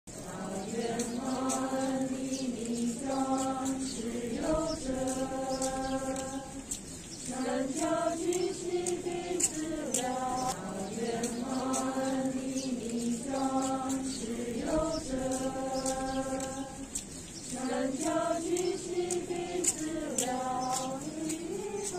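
A devotional chant sung to a slow melody, the same short phrase repeated over and over, with the pitch gliding up at the start of some phrases.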